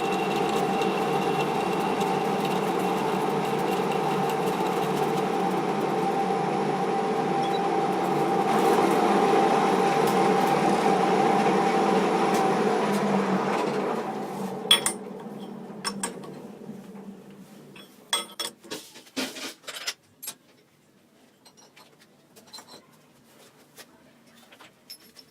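Small metal lathe running with a steady whine. About fourteen seconds in it is switched off and spins down over a few seconds, followed by scattered light clicks and taps.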